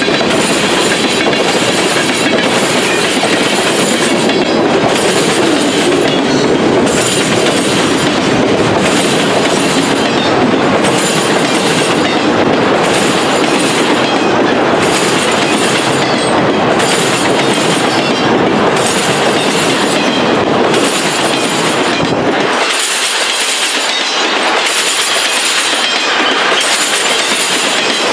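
CN mixed freight train's cars rolling slowly past: a steady rumble and rattle of steel wheels on the rail, with a regular clickety-clack. The low rumble falls away about twenty-two seconds in.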